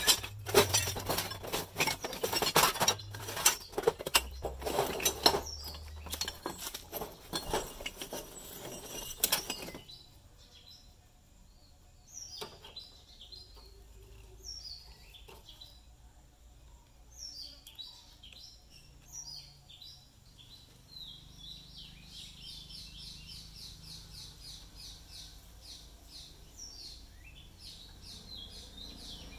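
Scrap metal pieces clattering and clinking as a hand rummages through a bin of rusty scrap, for about the first ten seconds. Then much quieter, with birds chirping.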